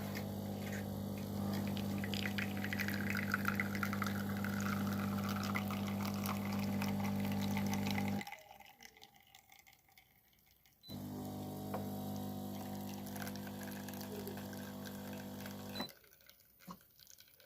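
De'Longhi Dinamica coffee machine's pump humming steadily while liquid pours into a cup. It runs for about eight seconds, stops, then starts again about three seconds later for another five seconds.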